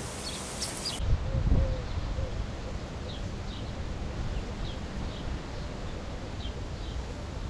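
Wind rumbling on the microphone, strongest just after a second in, with small birds giving faint, short high chirps here and there.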